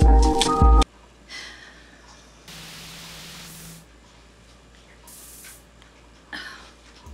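Intro music with held notes over heavy bass beats stops abruptly just under a second in. Then only low room noise remains, with a few short, soft hissing sounds.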